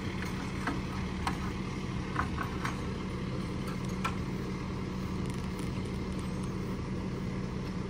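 Semi truck's diesel engine idling steadily, with a few faint clicks over it.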